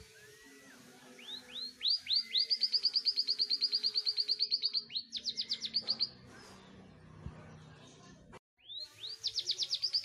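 Caged canary singing: rapid trills of sharp repeated notes, about nine a second, led in by a few short rising whistles. The song breaks off for about two seconds past the middle and starts again with rising notes near the end.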